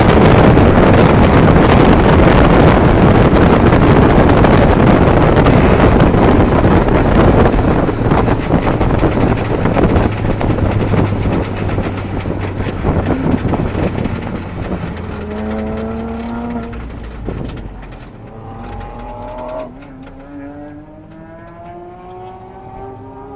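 1992 Mazda Miata's 1.6 L B6 inline-four engine while driving, an engine the owner reports as having rod knock. Loud wind and road noise fades over the first half as the car slows. Then the engine note rises in pitch, drops suddenly about three quarters of the way through, as at a gear change, and rises again.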